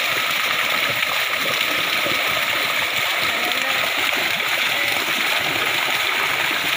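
Many fish thrashing and splashing in shallow water inside a drawn-in seine net, a steady, dense splashing with no pauses.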